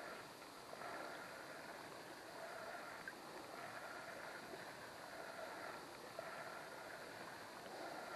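Faint, steady rush of river water, with a few soft ticks of footsteps as someone walks.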